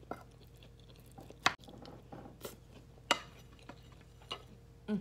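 A person chewing a mouthful of bean chili and rice, with a few short sharp clicks and smacks, the loudest about a second and a half in.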